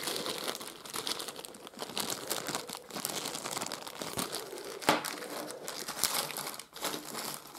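Clear plastic zip-lock bag crinkling as hands handle and open it, with one sharper click about five seconds in.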